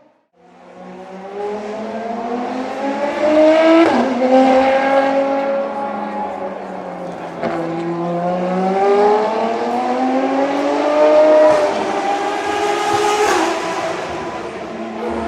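Ferrari FXX K track cars' V12 engines running hard at speed, the engine note climbing and then dropping sharply at upshifts, about 4 and 7.5 seconds in and again near the end, with more than one car heard at once.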